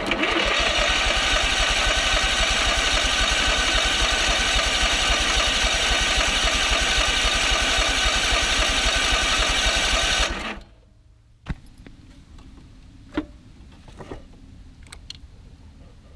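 Electric starter cranking the gasoline engine of a Landa hot water pressure washer, a fast, even chugging for about ten seconds without the engine catching, then cutting off suddenly; a few faint clicks follow.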